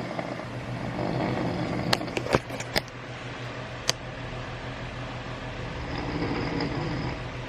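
Steady low hum of a vehicle running, with a quick cluster of sharp clicks about two seconds in and one more click a little later.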